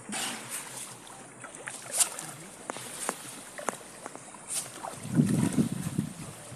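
Water splashing and lapping against a small boat being paddled or poled, with scattered sharp splashes and knocks. From about five seconds in, gusts of wind rumble on the microphone.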